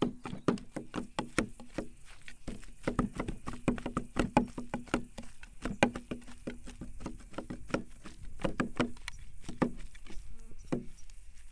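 Two heavy steel cleavers (Iranian satoor) chopping by hand on a wooden block, about three or four quick knocks a second, mincing lamb and beef shoulder with onion for kebab bonab. The chopping stops shortly before the end.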